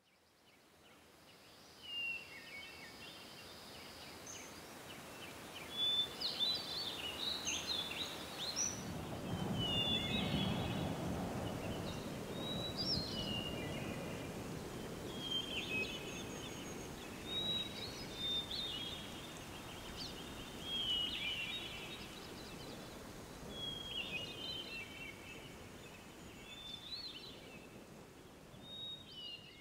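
Ambient creek-side sound: a bird calling short chirping phrases again and again, every second or two, over the steady rush of stream water, which swells about nine seconds in.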